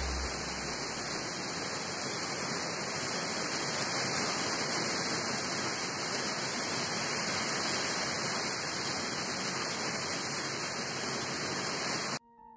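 Heavy rain falling in a steady, even hiss that cuts off abruptly near the end.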